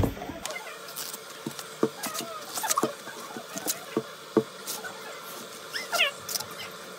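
Green husk leaves being torn and peeled by hand off a fresh ear of chodang sweet corn: a string of short crackles and rustling rips, with a few brief squeaks about six seconds in.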